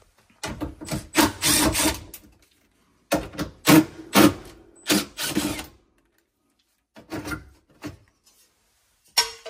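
Cordless drill-driver running in several short bursts on screws in a sheet-metal air handler cabinet, with brief pauses between groups of bursts.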